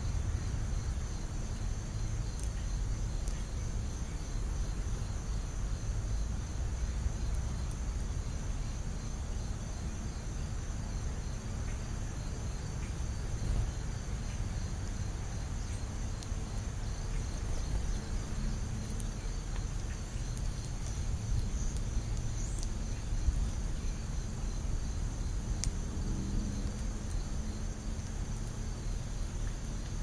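Crickets chirping in a steady, rapid high trill, over a low steady rumble.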